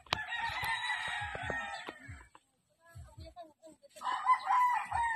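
A rooster crowing twice, each crow about two seconds long, the second louder than the first.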